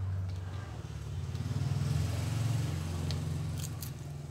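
A motor vehicle engine drones low in the background, growing louder toward the middle and easing off again. A few faint metallic clicks come from a screwdriver prying at the pump's seals.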